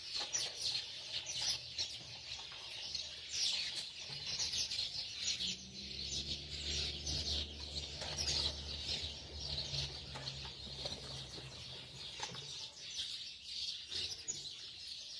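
Many small songbirds chirping and twittering in a dense, continuous chorus, with a faint low hum from about four to twelve seconds in.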